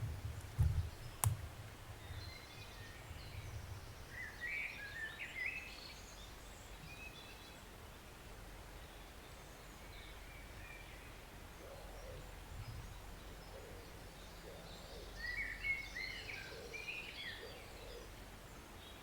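A small songbird singing two short bursts of quick chirping phrases, about four seconds in and again near the end, over the faint steady rush of a forest stream. Low rumbling thumps in the first few seconds and one sharp click just over a second in.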